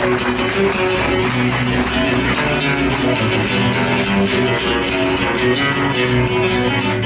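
Argentine folk band playing an instrumental passage between sung verses: strummed acoustic guitars keeping a steady rhythm under sustained melody notes.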